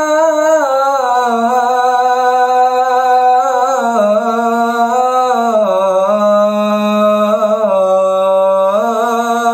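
A man's voice chanting the azan (Islamic call to prayer), drawing out one phrase of 'Allahu Akbar' as a single long held note with melismatic ornaments. The pitch steps down about halfway through and rises again near the end.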